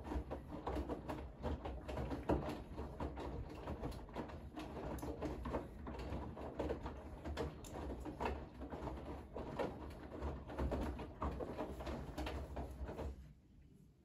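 Bosch front-loading washing machine drum turning a heavily loaded wash of wet laundry, the clothes tumbling with a dense run of soft thuds and knocks over a low rumble. The drum stops about a second before the end and the sound drops away suddenly.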